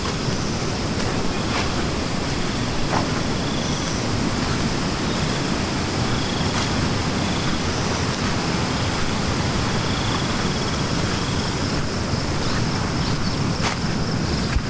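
Loud, steady rushing of a swollen, fast-flowing river running high after a night of heavy rain.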